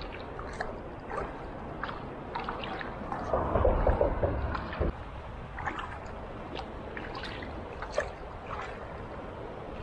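Double-bladed kayak paddle strokes dipping and splashing in calm river water, with drips between strokes. There is a louder stretch of splashing about three to five seconds in.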